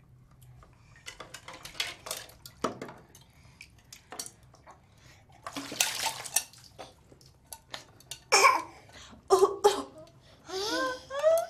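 Water splashing and pouring during a small child's bath, with scattered knocks and clatters of bath things; near the end a few short vocal sounds rising in pitch.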